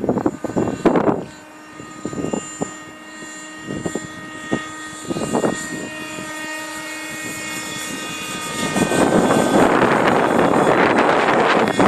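Thunder Tiger Raptor 30 nitro RC helicopter in flight, its engine and rotors giving a steady high whine with several held tones, buffeted by gusts of wind. About nine seconds in a loud rushing noise rises and stays.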